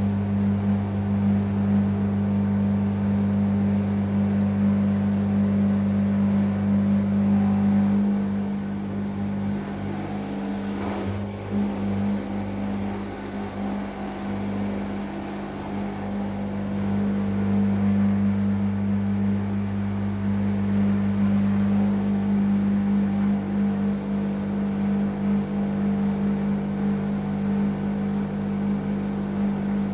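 Washing machine drain pump running with a steady hum. About eight seconds in the hum weakens and wavers for several seconds, then comes back full: the strange drain-pump sound that the owner takes for a small, not serious pump problem.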